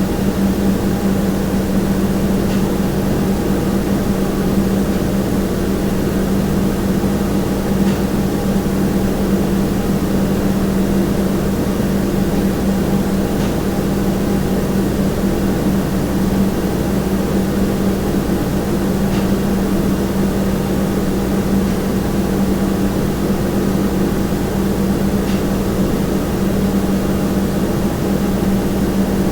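Kitchen room tone: a steady, even hum with a strong low tone, and a faint tick about every five and a half seconds.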